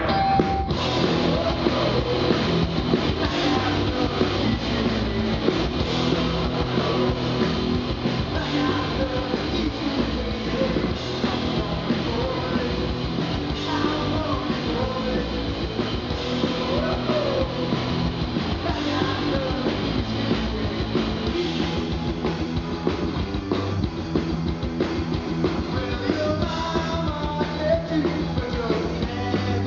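Punk rock band playing live at a steady loud level: electric guitars, bass guitar and drum kit, with a singing voice.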